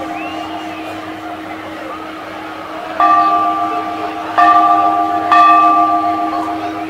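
A bell struck three times, about three seconds in and then twice more a second or so apart, each strike ringing on and fading. A steady low hum runs underneath.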